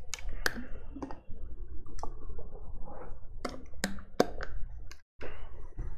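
Plastic water bottle handled and squeezed close to the microphone: a run of irregular sharp clicks and crackles over soft rustling.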